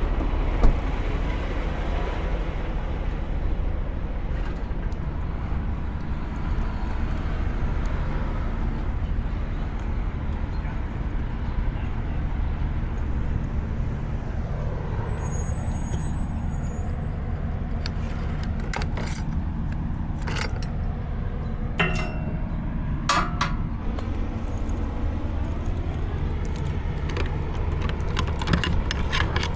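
Metal clinking and clacking from the seal being broken and the trailer's rear door latches worked open, a few sharp knocks scattered through the second half, over a steady low drone of a diesel engine running.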